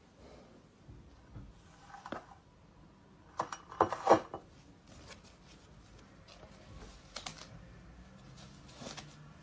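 Handling noises: scattered clicks, knocks and rustles as a ceramic mug is moved on the tabletop and a disposable face mask is lifted off it and put on, loudest around four seconds in.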